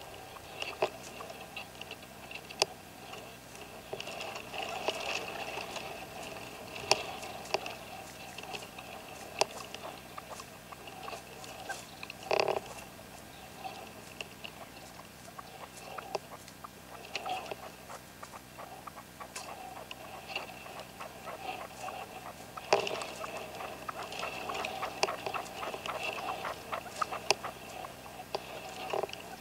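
Red-legged partridges calling: long runs of rapid clucking, ticking notes, with a louder call about halfway through and another run of strong calls later on.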